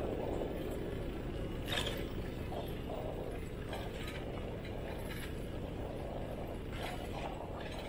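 Bicycle rear-hub freewheel ticking in short spells as the rider coasts, over a steady low rumble of street noise.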